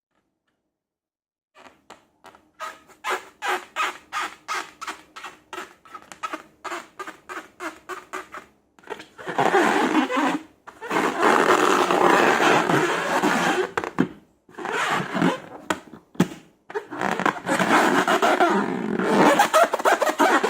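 Slime being squeezed and worked by hand: a run of short squelches, two or three a second, then from about nine seconds in longer, louder wet squishing broken by a few short pauses.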